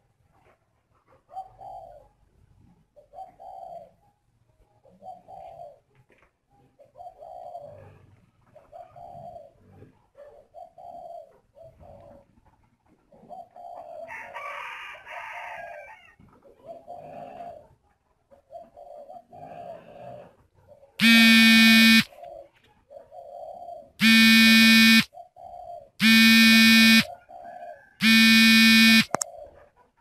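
Spotted doves cooing over and over in short, low, regular notes: the breeding-season cooing of a male urging the hen to nest and lay. In the last third, four loud, steady-pitched calls about a second long each, from an unidentified source, drown the cooing.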